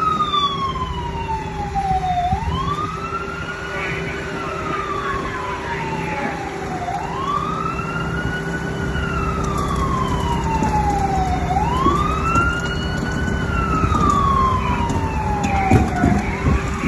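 Emergency vehicle siren wailing: each cycle a quick rise in pitch and then a long falling slide, repeating about every four and a half seconds.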